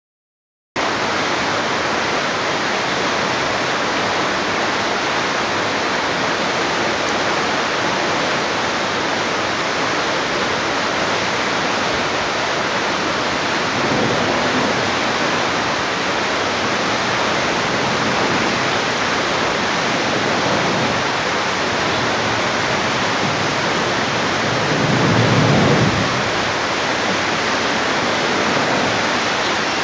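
Water rushing out of a dam's open outlet gates into a churning whitewater channel: a steady, loud, even rush. A brief louder low rumble swells up about 25 seconds in.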